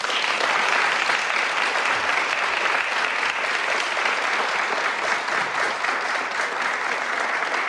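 Crowd applauding steadily, a dense patter of many hand claps that starts at once and eases off slightly near the end.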